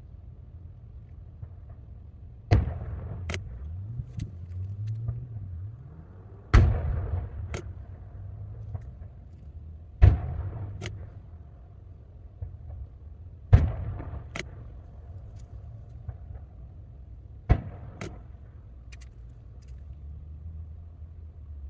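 Distant aerial firework shells bursting: five deep booms, about one every three to four seconds, each trailing off in a low rumble.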